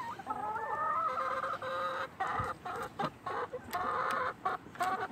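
Hens clucking inside a hen house: a run of short pitched calls with brief gaps, and a few light knocks mixed in.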